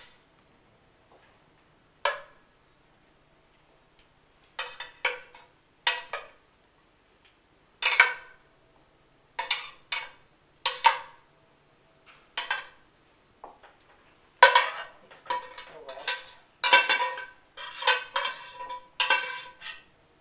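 A metal serving utensil clinking and scraping against a stainless steel sauté pan and a plate as meatballs are lifted out onto spaghetti. The clinks come singly and with gaps at first, then thicker and closer together over the last several seconds, each leaving a short metallic ring.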